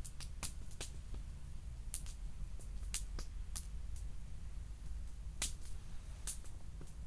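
Wood campfire crackling, with irregular sharp pops and snaps about two a second over a low steady rumble.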